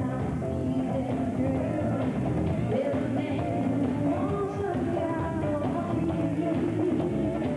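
Live pop music played over a club sound system, with a woman singing lead over the backing track.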